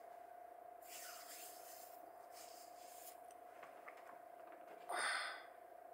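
A person's breathing: a few soft exhales, then a louder, sigh-like breath about five seconds in, over a faint steady whine.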